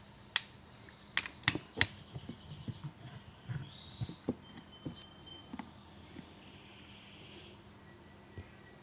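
Handling noise from a printed circuit board with large electrolytic capacitors fitted: a few sharp clicks and knocks in the first two seconds as the board is turned over, then lighter scattered taps as it is set down.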